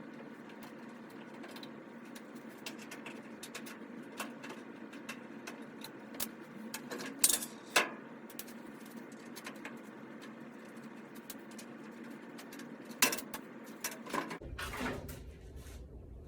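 Scattered clicks and a few sharp knocks from a screwdriver and sheet-metal parts being handled as the screws holding the dryer's front frame are taken out, with the loudest knocks about seven, eight, thirteen and fifteen seconds in.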